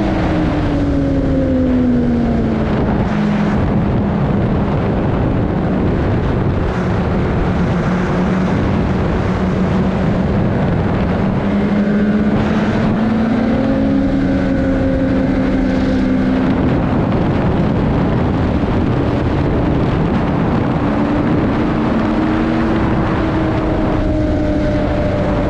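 2021 Polaris Indy XC 850 snowmobile's 850 two-stroke twin engine running at trail speed, its pitch dropping in the first two seconds, then rising and settling back twice as the throttle changes.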